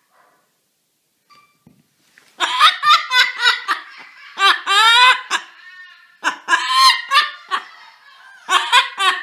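A parrot mimicking human laughter: bouts of quick, high-pitched 'ha-ha-ha' syllables that start a little over two seconds in.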